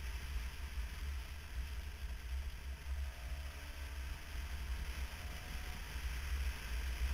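Motorcycle riding at road speed, heard through the camera's microphone: a heavy, unsteady wind rumble and an even rush of engine and road noise. A faint steady whine runs through the middle few seconds.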